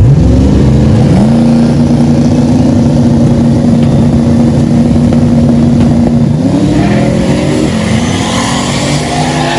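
Drag car engine revving hard: the pitch climbs quickly, holds at high revs for about five seconds, then climbs again before easing off near the end.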